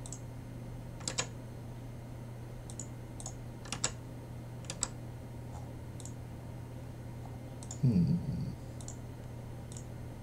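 Computer keys clicking one at a time, about once a second at uneven gaps, over a steady low hum. About eight seconds in there is a brief low voice sound.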